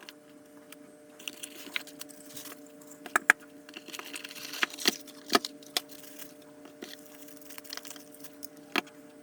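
Hard objects being handled on a surface: a dozen or so sharp clicks and taps, scattered and uneven, with light rustling between them, over a steady low hum.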